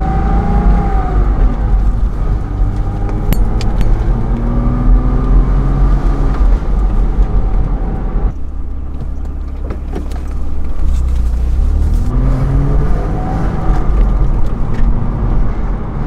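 Porsche 987 Boxster's flat-six engine pulling under acceleration, its pitch rising for several seconds, easing off a little past halfway, then rising again, with low road rumble heard from inside the open-top cabin.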